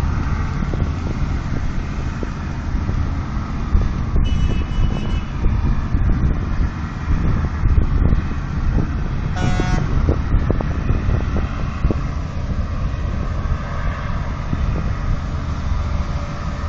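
Tugboat's diesel engine running steadily as it works a barge, with wind buffeting the microphone. Two short high-pitched tones sound, about four seconds in and again about nine and a half seconds in.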